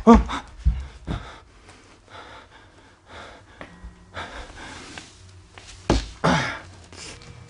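A man breathing hard and gasping, with a strained pitched gasp right at the start and another about six seconds in. A few low thumps come in the first second, and a sharp knock comes just before the second gasp.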